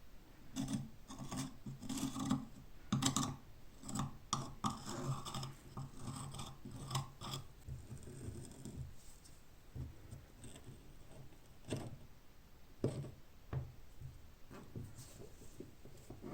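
Rusty steel padlock parts being worked by hand during disassembly: a run of irregular metal scraping and rubbing strokes with light knocks, thinning out to a few separate clicks and taps in the second half.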